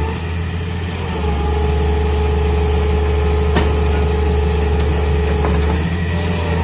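Hitachi Zaxis 200 crawler excavator's diesel engine running under load, with a steady hydraulic whine as the boom presses the bucket into the ground and lifts the machine's tracks. The whine starts about a second in and drops away near the end.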